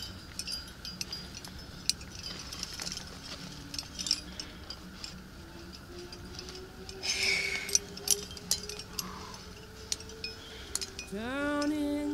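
Metal climbing gear, carabiners and quickdraws racked on a harness, clinking and jangling in short, irregular clicks as the climber moves up the rock, with a brief rustle about seven seconds in. Music with a sung note comes in about a second before the end.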